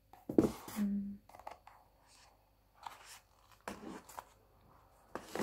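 Cardboard lid of a smartphone box being lifted off and handled: a sharp knock near the start, then light scraping and rustling of paperboard.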